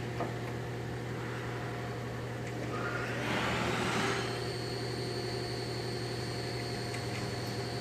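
A steady low mechanical hum, with a brief rise of rustling, scraping noise about three seconds in.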